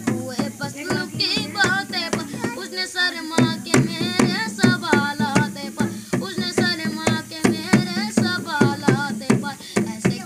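A boy singing a song to a dholak, the rope-tensioned two-headed barrel drum, beaten by hand in a quick rhythm of strokes underneath the voice.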